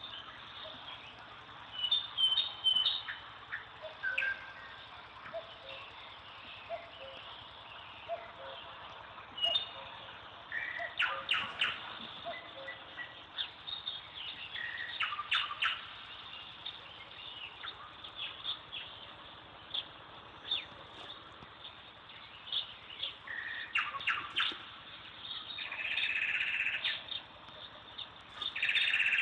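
Birds chirping outdoors: scattered short calls and trills over a faint steady hiss, with a longer, louder call near the end.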